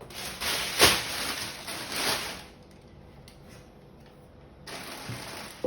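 Handling noise as a heavy 18-inch subwoofer is moved into place: scraping and rustling with a sharp knock about a second in, then another short scrape near the end and a click.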